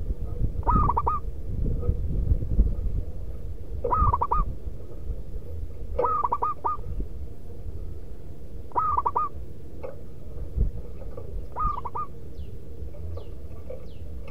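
Zebra dove cooing in five short bouts a few seconds apart, each a quick run of clipped notes, over a steady low rumble. Faint high chirps come in near the end.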